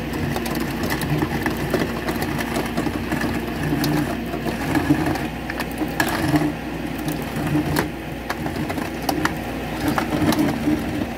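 Tow truck's winch hauling a wrecked car up a concrete ramp: a steady mechanical drone that swells and fades, with scattered sharp clicks and knocks.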